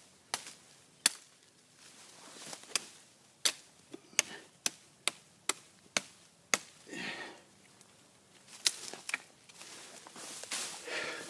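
Large bushcraft knife chopping wood: about a dozen sharp blade strikes into the wood, coming every half second or so, then a pause and two more strikes.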